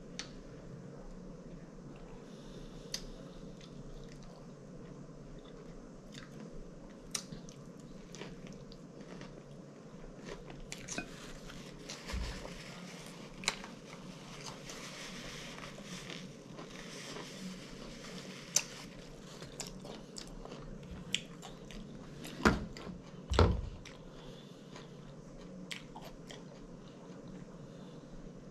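Close-up chewing and lip smacking of someone eating a catfish sandwich, with many short wet mouth clicks. About two-thirds of the way through, two dull thumps about a second apart are the loudest sounds.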